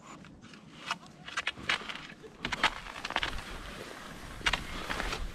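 Cross-country skis and poles crunching and scraping on packed snow in irregular strokes while skiing down a groomed trail, with a low rumble joining about halfway in.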